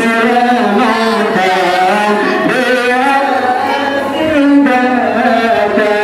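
Voices chanting a melodic devotional chant in long held notes that bend up and down: Maulid praise for the Prophet's birthday.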